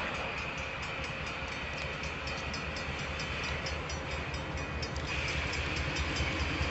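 Locomotive pushing a railway wedge snow plow past at speed: a steady rumble of engine and wheels that grows louder toward the end, with a high steady tone over it that breaks off briefly partway through.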